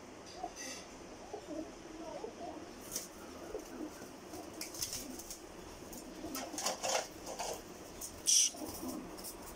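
Two feral pigeons fighting: low cooing throughout, then from about three seconds in a run of sharp wing flaps and claps, the loudest near the end.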